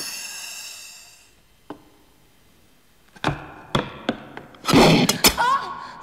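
Film struggle sound effects: background music dies away, then after a hush come several sharp thuds and a loud crash, followed by a woman's pained cry near the end.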